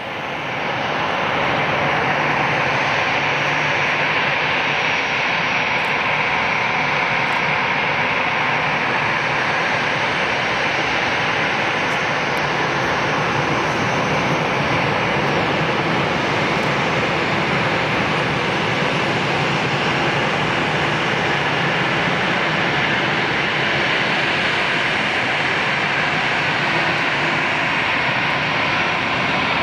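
Airbus A320-214's CFM56 jet engines running at taxi power as the airliner taxis: a steady, loud jet rush that swells in over the first second or two and then holds level.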